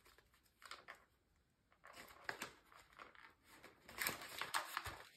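Faint crinkling and rustling of Canadian polymer banknotes being handled at a cash envelope, in short scattered bursts that grow busier and louder near the end.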